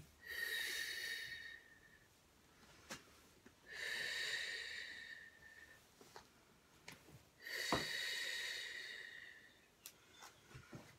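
Three long, audible breaths of a woman moving through a yoga flow, each about two seconds, evenly spaced. A few soft knocks fall between them, and one sharper knock comes about three-quarters of the way in.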